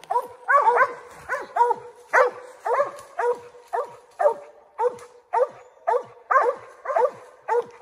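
Mountain cur barking steadily at the base of a tree, about two short barks a second: the repeated tree bark of a squirrel dog that has treed game.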